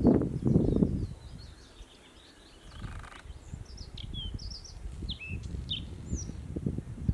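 Male bluethroat singing: a run of short, varied chirps and whistled notes that sweep up and down in pitch. Wind gusts rumble on the microphone, loudest in the first second.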